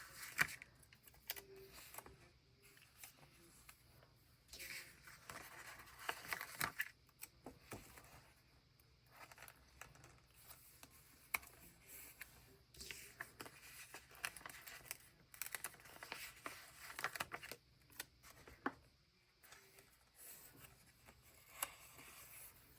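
Faint, irregular rustling and peeling of paper sticker sheets, with small clicks and taps, as stickers are peeled from their backing and pressed onto a journal page.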